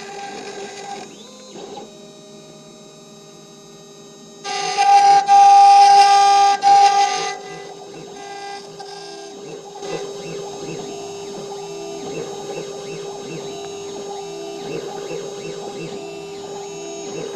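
CNC milling machine's spindle whining steadily while a small end mill engraves letters into a metal plate. A loud shrill cutting squeal comes in about four and a half seconds in and lasts nearly three seconds with two brief breaks, then the machine runs on more quietly.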